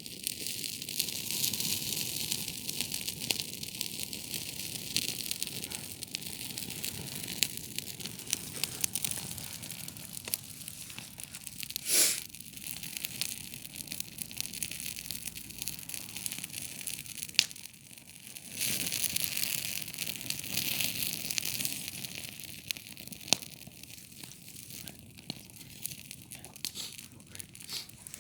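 Campfire crackling as the wood burns: a dense, steady run of small crackles, with a few sharp, louder pops, one about twelve seconds in and another a few seconds later.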